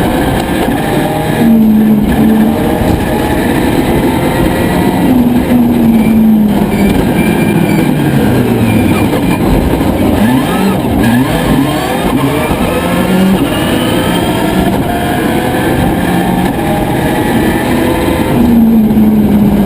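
Subaru Impreza WRC's turbocharged flat-four engine at full rally pace, revving up and dropping back again and again as it changes gear.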